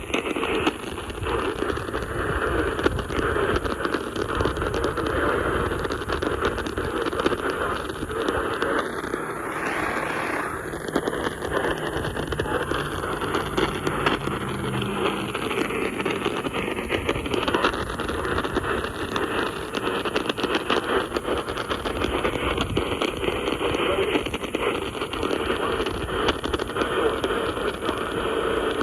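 Radio static: a steady crackling hiss, with a faint whistle that slides down and back up in pitch about ten seconds in.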